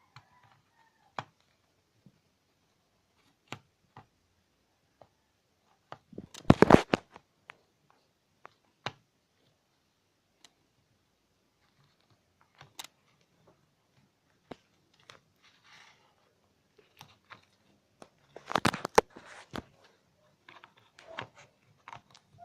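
Slime being worked by hand: scattered sticky clicks and pops, with two louder bursts of crackling squelches about six seconds in and again near nineteen seconds.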